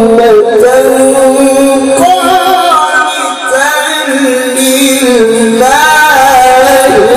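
Male qari chanting Quran recitation (tilawah) in a melodic style, holding long ornamented notes that slide up and down in pitch. It is amplified through a handheld microphone and loudspeaker, with a brief dip for breath about three seconds in.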